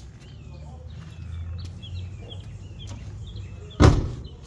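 A car door on a Honda Civic EG hatchback being shut with a single solid thump near the end, over birds chirping and a low steady background hum.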